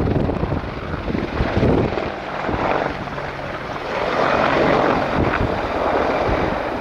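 AH-64E Apache attack helicopter flying past, its rotor and turbine noise swelling about four seconds in and then easing.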